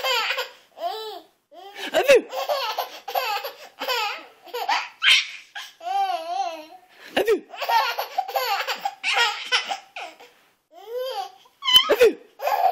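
Baby laughing in repeated bouts with short breaths between, and a wavering, warbling call about six seconds in.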